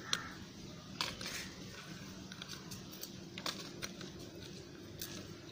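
A handful of light, separate clicks and taps from a plastic mobile phone charger being handled in the fingers, over a faint steady hum.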